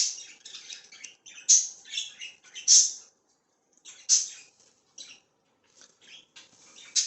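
Young budgerigars chirping and squawking in short, harsh, high-pitched bursts, with several louder calls spread a second or so apart.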